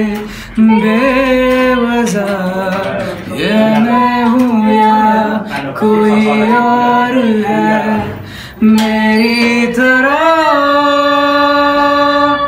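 A man singing solo, in several phrases with short breaks, ending on a long held note.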